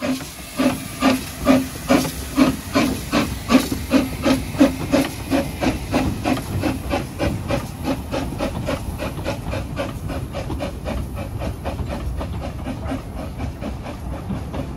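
Narrow-gauge 0-4-2 saddle tank steam locomotive (Corris Railway No. 3, Sir Haydn) chuffing hard as it pulls away from a standstill over a steady steam hiss. The exhaust beats quicken from about two a second to about four a second and grow fainter as the engine draws away.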